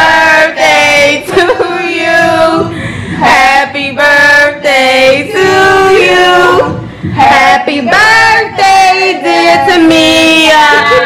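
A group of people singing, a woman's voice leading, in long held notes broken by short pauses.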